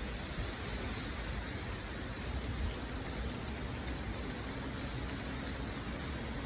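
Steady city wind: a continuous, even hiss with a low rumble underneath.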